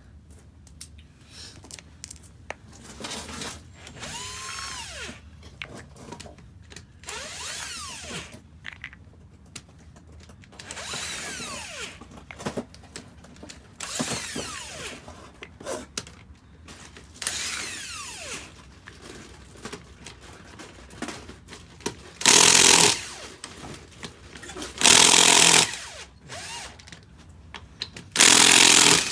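Impact wrench run in short bursts on a wheel's lug nuts, loosening them to take the wheel off. Several quieter bursts, each trailing off with a falling whine, are followed by three loud, longer bursts near the end.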